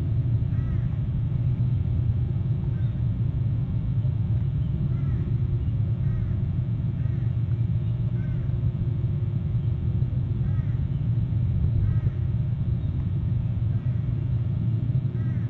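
Steady wind rumble on the microphone, with short, faint, high calls repeated every second or two over it: the squee calls of an eagle.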